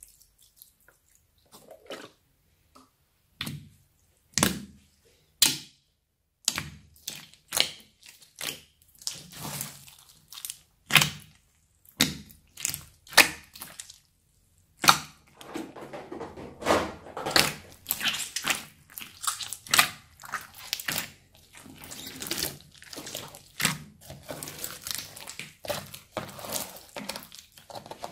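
Hands squishing and pressing a large mass of foam-bead slime, giving irregular wet pops and clicks. The pops are sparse after a few quiet seconds and become dense, near-continuous crackling about halfway through.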